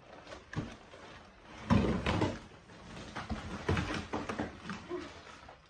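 A rolled mattress in plastic wrap scraping and rustling against the cardboard box it is being pulled out of, with the loudest scrape about two seconds in and shorter scrapes after.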